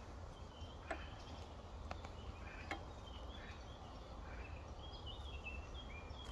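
Quiet woodland ambience with small birds chirping in short high calls throughout and a low steady rumble underneath. Three faint clicks come in the first three seconds as the pocket knife and paracord are handled.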